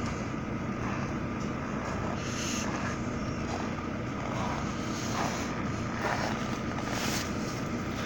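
Steady noise of a car with its engine running, a low even rumble with a faint hum.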